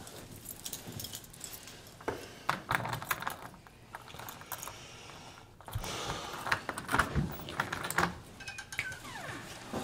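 A bunch of keys jangling and clicking against a door lock as a key is fumbled into it and turned: irregular runs of small metal clicks and rattles, with a brief squeak near the end.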